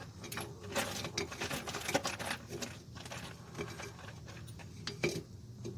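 Metal brake parts and tools clinking and rattling as they are handled and fitted, with a run of light clicks and one louder clack about five seconds in.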